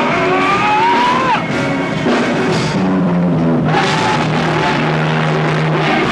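Rock music from a band: a pitched line glides upward in the first second or so, and a steady low note is held through the second half.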